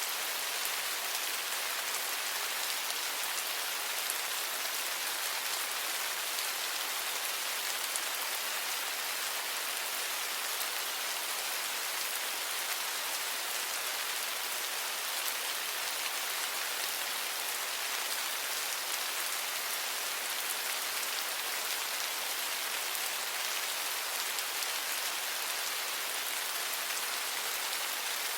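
Steady rain falling, a dense even hiss of drops with no let-up.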